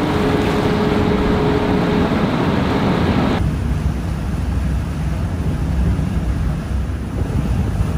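Boat under way in fog: steady rushing wind-and-water noise with a low rumble. A faint held horn tone, a distant foghorn, sounds for about two seconds near the start. A little over three seconds in, the noise abruptly becomes duller.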